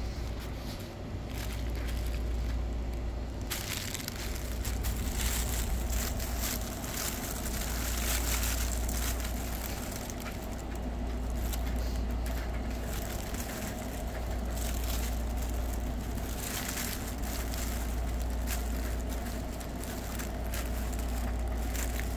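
Fabric pop-up cat tunnel rustling and crinkling in irregular bursts as a cat moves and rolls around inside it, over a steady low rumble.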